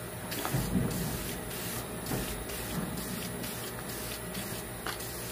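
Aerosol can of Dupli-Color vinyl and fabric paint hissing in a series of short bursts as a second coat goes onto a plastic seat trim piece.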